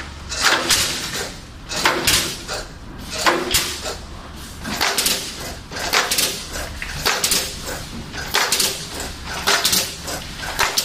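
Automatic pallet nailing machine driving nails into pallet deck boards: a quick, irregular run of sharp shots from its nail guns over a low machine hum.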